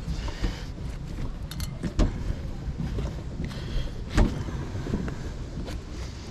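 Tire levers and plastic rim savers scraping and clacking against the wheel rim as the tire bead is worked off, with sharper knocks about two seconds and four seconds in.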